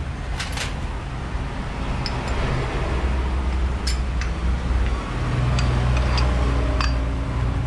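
Sharp metallic clicks and clinks of CVT pulley parts being handled and fitted, several times, over a steady low mechanical hum that grows louder about halfway through.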